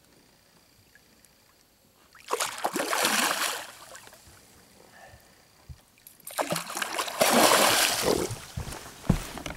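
A big hooked silver pike thrashing at the surface beside the boat: two bursts of splashing, a short one about two seconds in and a longer one from about six seconds in.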